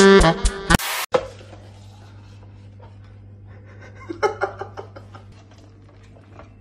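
Jazz saxophone music ends in the first second with a short burst of noise at the cut. Then a quiet steady hum, with faint irregular knocks and clatter around four to five seconds in, from a glass jar and raw meat being handled on a kitchen counter.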